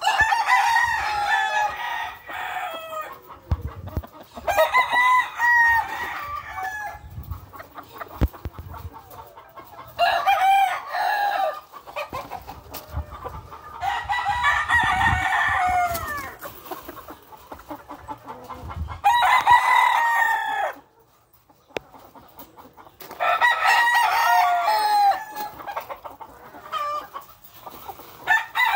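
Gamecock roosters crowing repeatedly, a crow every four to five seconds, each lasting a second or two.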